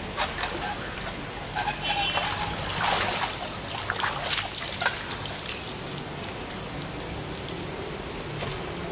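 Water splashing and sloshing in a swimming pool, with irregular splashes over the first five seconds or so and then a steadier background.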